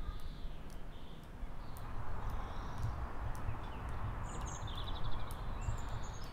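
Outdoor ambience: a steady rushing noise over a low rumble that swells after about two seconds, with a few short bird chirps in the second half.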